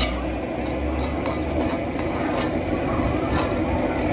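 Metal ladle stirring and scraping in a steel wok, with half a dozen short clicks where it knocks the pan, over a steady low rumble.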